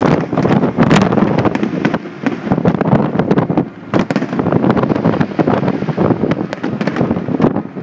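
Aerial fireworks display: shells bursting in rapid, overlapping bangs with crackle and a continuous low rumble, easing off briefly about halfway through and then picking up again.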